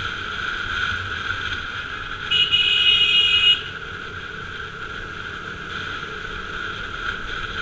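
KTM RC 200 motorcycle running along a street, with a vehicle horn honking once for about a second, starting about two seconds in.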